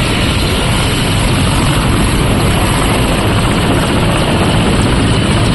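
Mil Mi-17 transport helicopter running on the ground with its main rotor turning, before take-off: a steady, loud rotor and turbine noise that grows slightly louder after the first second.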